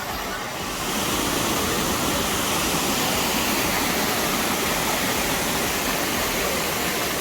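Waterfall rushing: a steady, dense roar of falling water that fills in and grows slightly louder about a second in.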